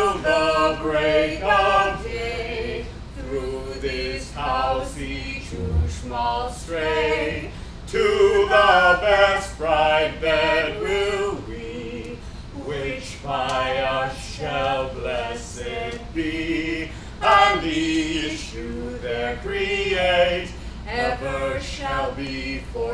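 A group of actors, men and women together, singing a song as a chorus.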